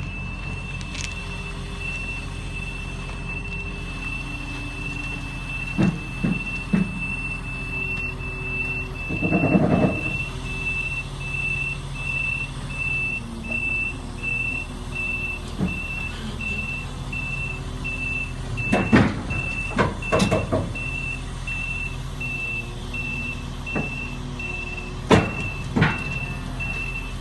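Crawler crane's diesel engine running steadily while its travel alarm beeps evenly, about two beeps a second. Several sharp metal clanks and knocks from the steel tracks and trailer come at intervals as the crane moves on the low-bed trailer.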